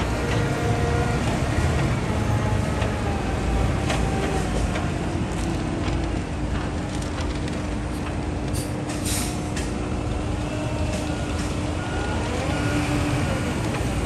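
Concrete mixer truck's diesel engine running as the truck drives, with a short hiss about nine seconds in.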